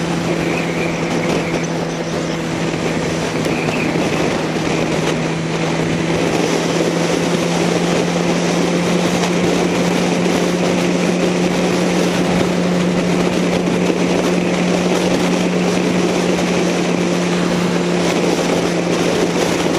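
Motorcycle engine holding a steady drone at constant cruising speed, with wind rushing over the microphone.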